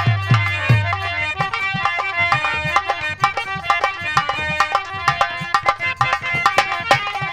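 Nautanki instrumental music: rapid, dense hand-drum strokes over held melodic notes, with a few deep booming drum strokes in the first second.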